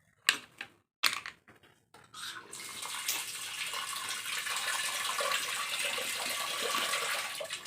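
Two sharp knocks, then water running steadily from a tap into a sink as hands are washed, stopping near the end.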